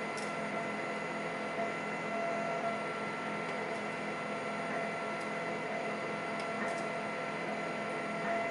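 A steady background machine hum carrying several steady tones, with a few faint light clicks of tweezers handling small lock parts.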